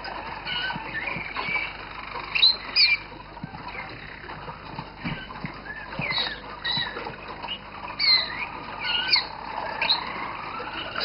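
Several caged roller canaries chirping and singing at once: short whistled notes that rise and fall, overlapping, with a louder cluster of chirps a few seconds in.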